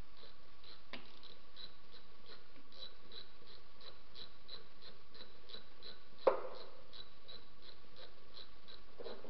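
Ratchet wrench clicking at a slow, even pace, about two or three clicks a second, as valve cover bolts are tightened. A sharp metallic knock comes about six seconds in, and a fainter one about a second in.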